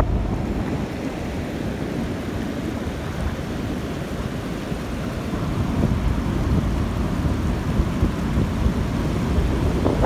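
Wind buffeting the microphone in a low, uneven rumble, over the steady wash of ocean surf.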